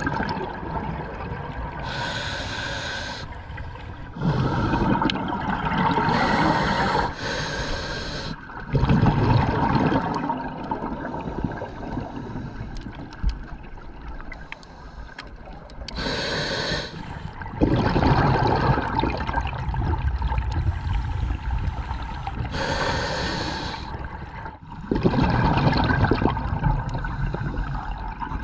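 A scuba diver breathing through a regulator: several breaths, each a short hiss on the inhale followed by a longer burble of exhaled bubbles.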